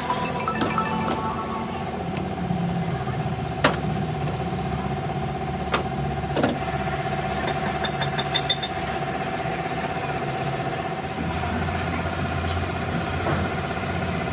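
Vehicle engine idling steadily, with a few sharp clicks; its low hum grows stronger about eleven seconds in.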